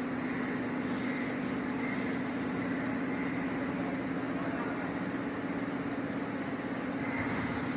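Steady mechanical hum of heavy machinery running, with a constant low drone and an even whirring noise over it.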